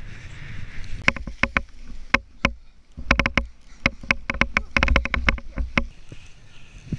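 Skis running through powder snow with a low rush, overlaid from about a second in by a rapid, irregular series of sharp clattering knocks from the skier's gear, which stop near the end.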